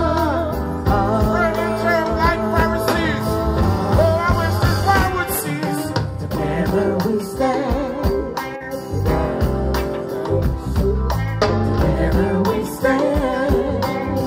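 Live reggae band playing with a male lead singer singing into a microphone over a heavy bass line.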